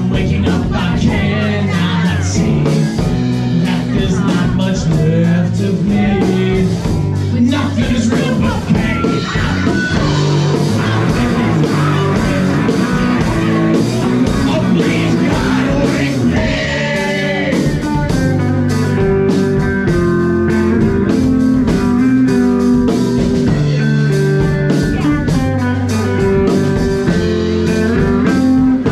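Rock band playing live: two electric guitars, bass guitar and drum kit, with a singer's vocals over the top.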